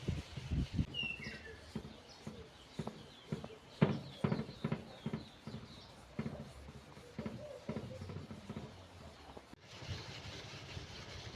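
Irregular knocks and clicks from metal PC case parts being handled, the loudest about four seconds in, with one short high chirp about a second in.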